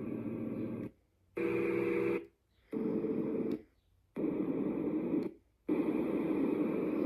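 White noise machine being stepped through its built-in sounds: five different steady noise tracks in turn, each playing for about a second and cut off by a brief silence as the next one is selected. The last one keeps going near the end.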